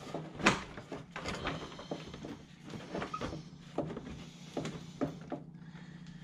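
Irregular clicks, knocks and light rattles of hands working at a John Deere 2320 compact tractor's plastic side shroud and wiring connectors, as the wires are being unplugged, over a faint steady low hum.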